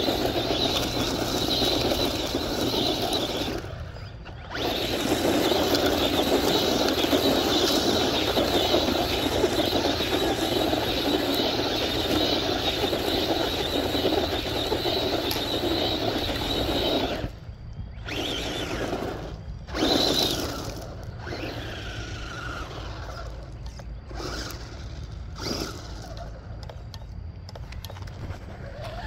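Battery-powered RC car running hard on loose gravel: a high electric-motor whine over the hiss and crunch of its tyres spraying gravel and dust, with a short break about four seconds in. In the second half it comes and goes in shorter spurts.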